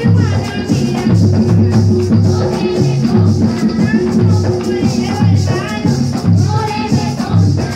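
Live folk music: a woman singing into a microphone over a steady hand-drum beat and shaken maracas.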